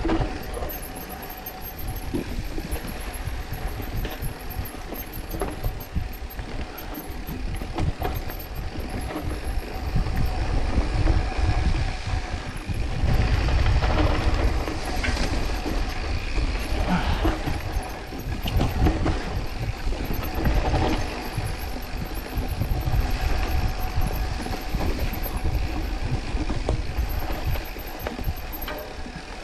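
Mountain bike riding over a dirt forest trail: a continuous low rumble of the ride, with irregular rattles and knocks from the bike over bumps, louder around the middle.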